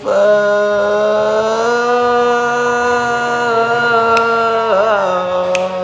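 A man singing a cappella-style into a phone, holding one long steady note for about four and a half seconds, then a quick wavering turn and a second held note near the end.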